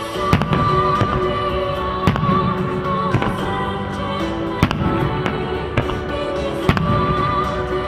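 Fireworks bursting in the air with several sharp bangs a second or two apart, over loud music.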